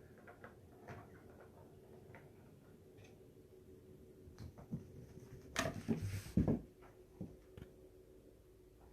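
Small clicks, taps and knocks from handling and kittens moving about, with a few louder knocks about six seconds in, over a faint steady hum.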